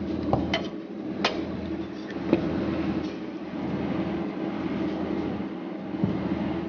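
A steady low mechanical hum with a handful of sharp clicks and clinks from a metal cookie press being handled, the clearest about a second in.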